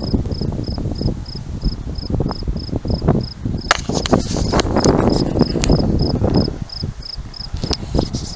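A cricket chirping steadily, about three high chirps a second, over gusty wind buffeting the microphone, with a few sharp clicks about four to six seconds in.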